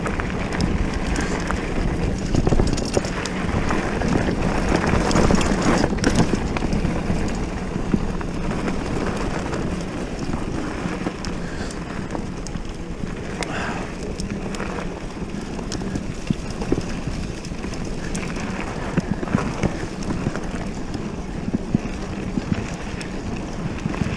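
Boardman mountain bike being ridden over a rough off-road track: steady tyre noise with many small knocks and rattles from the bumps, and wind on the microphone.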